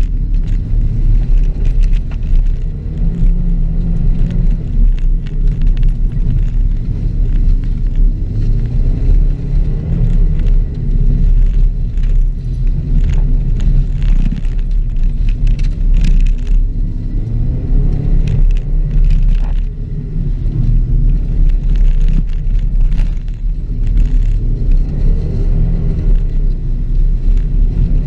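2006 Subaru WRX's turbocharged flat-four engine under hard driving on a dirt rallycross course, its pitch rising and falling again and again as it revs and shifts, over a heavy rumble with scattered sharp clicks and knocks.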